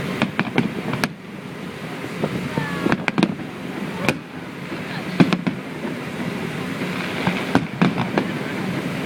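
Fireworks going off: irregular sharp bangs, about a dozen, some coming two or three in quick succession.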